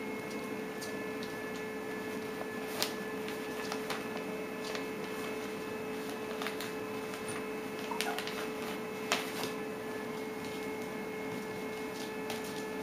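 Scattered light clicks and taps from a five-week-old puppy's claws on a tile floor and against a plastic-wrapped bale of wood shavings, over a steady electrical hum.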